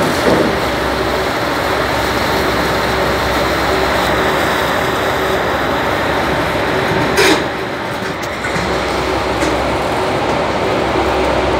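A car ferry's engine and machinery running steadily while berthed, a dense rumbling noise with a faint steady hum. A brief loud knock about seven seconds in.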